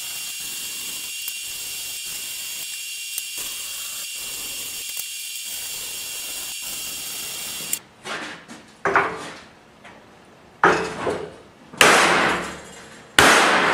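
Stick-welding arc with a 1/8-inch 6011 electrode crackling steadily for about eight seconds as the test pieces are tacked to the bench, then cutting off. A hammer then strikes the welded steel T-joints four or five times, each blow ringing out and fading.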